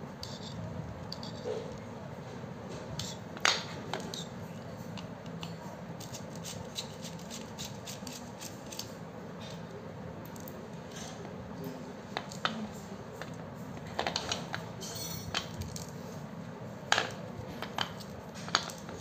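Scattered light clicks and clinks as an angle grinder's body and a hand tool are handled and set against a hard floor, over steady background noise. The grinder's motor is not running.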